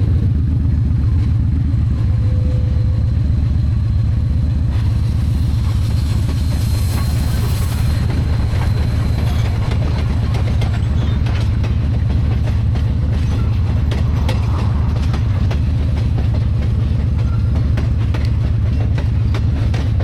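A short train rolling past close by: a steady low rumble with the wheels clicking over the rail joints.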